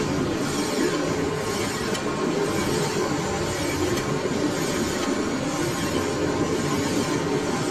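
Metal lathe running steadily, spinning a bladed forage harvester rotor, with a hand-held tool scraping against the turning steel disc.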